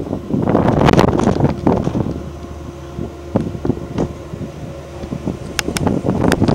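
Wind buffeting the microphone in gusts, strongest about a second in and again near the end, over a steady low hum, with a few sharp clicks near the end.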